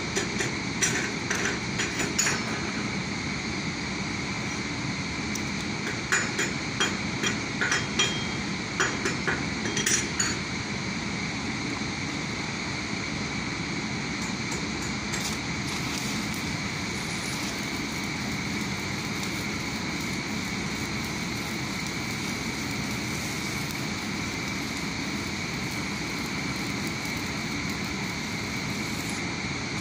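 Sharp metal-on-metal taps in two runs in the first ten seconds, a few a second, from hammering on the steel crane rail, such as chipping slag off a weld. After that comes a steadier noise with a fine crackle, the sound of a stick-welding arc on the rail.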